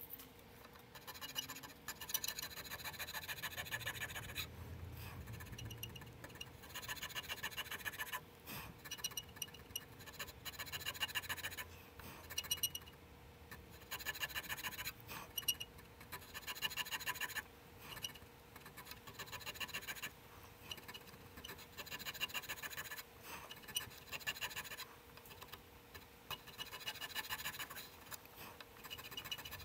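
Hand checkering tool cutting the lines of a diamond pattern into a 1911 pistol grip panel: a long run of short rasping strokes, each a quick rattle of fine ticks, with brief pauses between them. A faint steady hum sits underneath.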